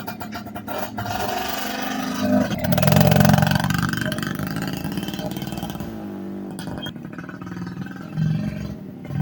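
Suzuki Tornado motorcycle engine being revved while warming up, rising to a peak about three seconds in and easing back, with a short blip of throttle near the end.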